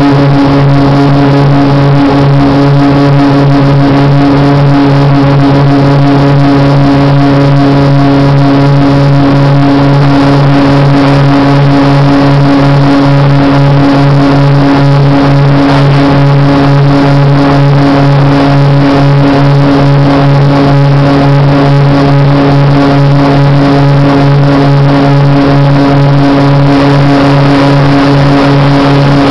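Small propeller plane's engine and propeller at takeoff power, heard from inside the cabin: a loud, steady drone that holds one pitch throughout.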